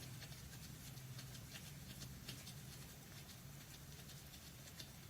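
Very quiet: faint, irregular light ticks and scrapes of hand tools working an engine's oil pan bolt, over a low steady hum.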